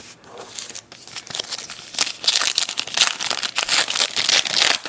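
Baseball card pack wrapper being torn open and crinkled by hand, soft rustling at first, then louder, dense crinkling from about halfway in that stops near the end.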